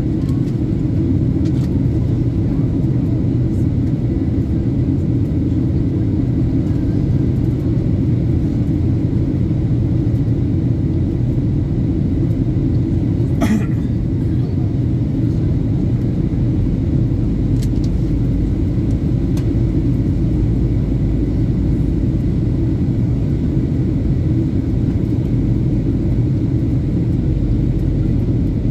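Steady low rumble of an airliner's engines and cabin noise heard from inside the passenger cabin, with one brief sharp click about halfway through.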